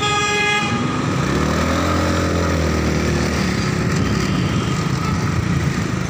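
Street traffic with a motorcycle engine. A horn beeps once at the start, then the small engine revs up and eases off over about two seconds, over a steady road noise.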